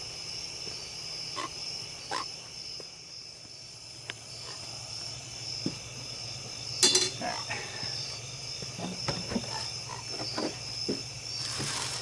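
Night chorus of frogs croaking and insects trilling steadily. A few handling knocks and clicks break in, the loudest a brief clatter about seven seconds in.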